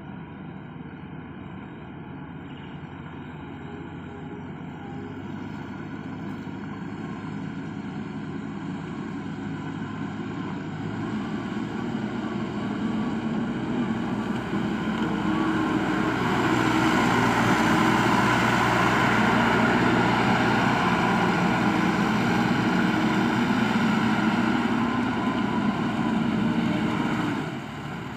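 JCB backhoe loader's diesel engine running as the machine drives closer, growing steadily louder over the first half and then holding loud. The level drops briefly near the end.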